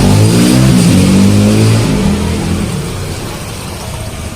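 A motorcycle engine running loud nearby with its pitch shifting, then fading gradually from about two seconds in.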